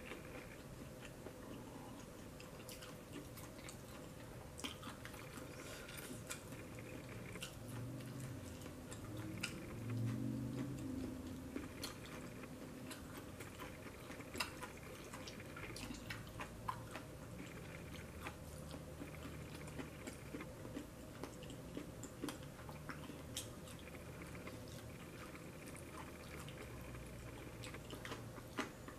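A person eating peeled shrimp and rice by hand: faint close-up chewing and wet mouth sounds with small scattered clicks. About ten seconds in there is a brief low voiced sound.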